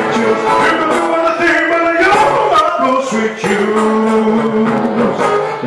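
A man singing live into a microphone over acoustic guitar accompaniment, holding one long note about three and a half seconds in.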